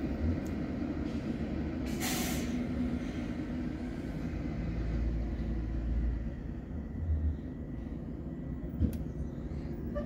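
School bus engines running in a bus yard, with a short air-brake hiss about two seconds in and a deeper engine rumble swelling as a bus pulls past around five to six seconds in.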